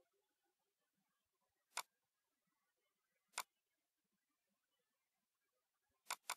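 Computer mouse clicking in near silence: two single clicks, then a quick double-click near the end.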